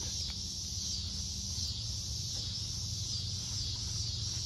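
Insects calling in a steady, high-pitched chorus, with a low steady rumble underneath.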